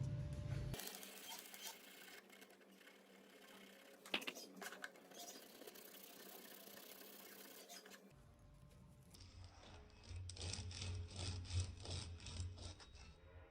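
Faint scraping and rubbing of hand work on a metal thread die, such as filing or brushing. There is a sharp click about four seconds in, and a run of quick, rhythmic strokes near the end.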